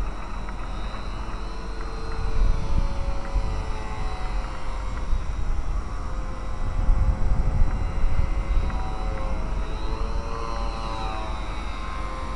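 Radio-controlled Super Cub LP model plane's brushed electric motor and propeller whining in flight, the pitch sliding up and down as the plane passes and the throttle changes. A low, gusty rumble of wind on the microphone swells twice, about two and seven seconds in.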